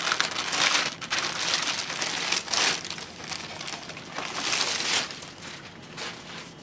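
Thin clear plastic wrapping crinkling and rustling in uneven surges as it is handled and pulled off a newly unboxed flat-panel TV. It dies down after about five seconds.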